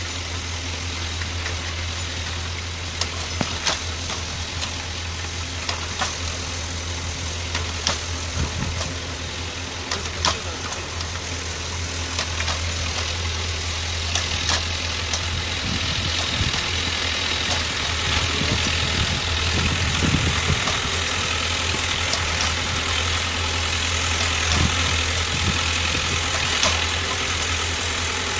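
A tractor engine runs steadily, driving a Calderoni FPS55 in-row rotary cultivator through its cardan shaft as the tool tills dry soil. Scattered sharp clicks and knocks sound over the engine, which grows a little louder about halfway through.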